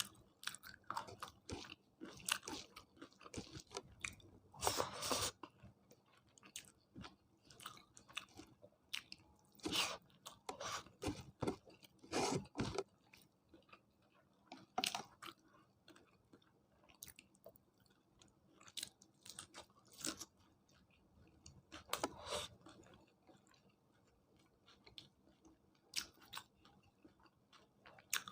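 A person eating close to the microphone: irregular chewing with crunchy bites, louder clusters of crunching coming every few seconds.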